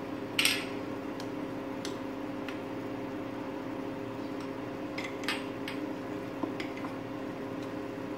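Cornflour-thickened chicken corn soup simmering in a pan, with scattered light pops and clicks over a steady low hum. The loudest pop comes about half a second in.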